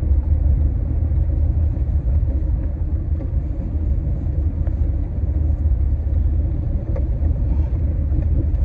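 Steady low rumble of a car driving on a snowy road, heard from inside the cabin.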